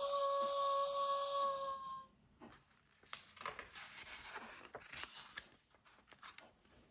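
Recorded wolf howl played through the small speaker of a children's electronic sound book: one long, steady-pitched call of about two seconds. It is followed by the soft rustle and flap of a large paper page being turned.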